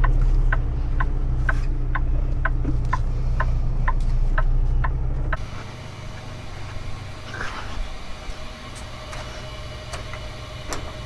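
Steady low engine and road rumble inside a Kenworth T680 semi-truck cab, with the turn signal clicking about twice a second. About five seconds in, the rumble gives way abruptly to a much quieter outdoor scene with a faint steady hum and a few small clicks.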